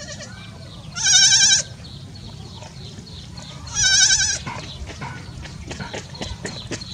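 Newborn goat kid bleating twice: two short, high, quavering calls about three seconds apart.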